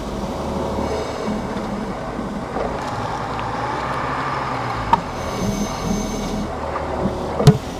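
Road and running noise inside the cab of a 2025 Chevrolet Silverado 1500 Trail Boss on the move, with a sharp knock about five seconds in and a louder single clunk near the end. These are the leaf-spring clunks the owner finds excessive.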